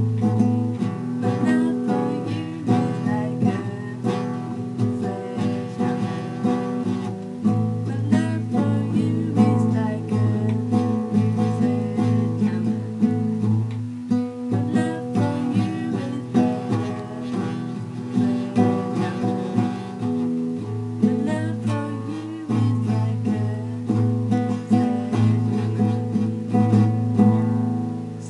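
Strummed acoustic guitar playing a song, with a voice singing along; the sound starts to fade right at the end.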